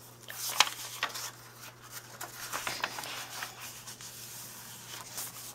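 Paper pages of a handmade journal being turned and smoothed by hand: soft rustling and rubbing with scattered light taps, the sharpest click about half a second in.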